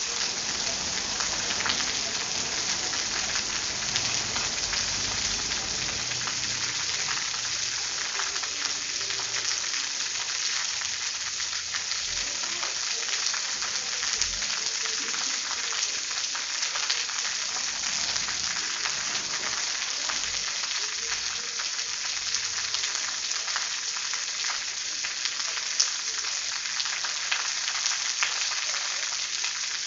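Steady rain falling: an even hiss dotted with fine ticks of drops, and a few sharper drips near the end.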